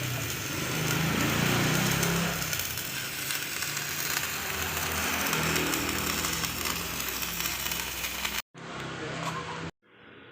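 Power tool working steel plate, a steady harsh hiss with a low hum under it, cutting off abruptly about eight seconds in; after a brief second burst it gives way to a much quieter steady background.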